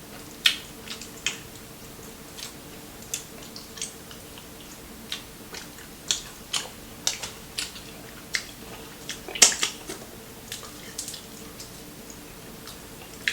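Crispy fried chicken being chewed close to the microphone: irregular sharp crunches and crackles, the loudest about nine seconds in.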